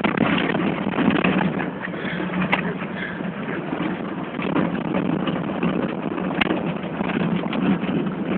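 Suzuki car driving on a dirt road, heard from inside the cab: a steady engine drone under continual rattling and road noise from the tyres on the rough surface.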